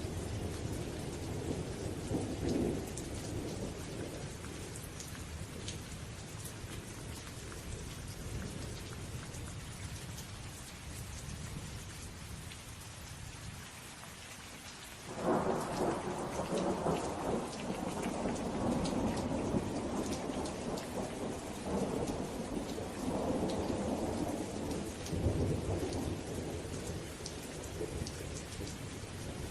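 Steady heavy rain with rolling thunder: a rumble dies away over the first half, then a loud thunderclap breaks about halfway through and keeps rumbling in waves.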